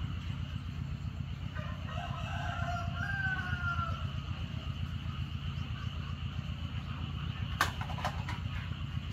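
A rooster crows once, starting about a second and a half in, a long call of about two and a half seconds that falls slightly at the end, over a steady low hum. Near the end come a couple of sharp knocks.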